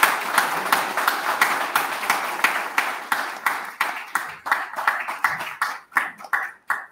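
Audience applause, a dense patter of clapping that thins out to a few scattered claps and stops near the end.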